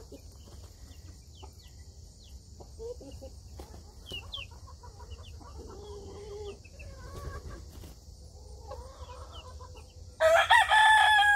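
Chicks peeping faintly in short high falling chirps, with soft low clucks from the hen. About ten seconds in, a loud, drawn-out chicken call breaks in.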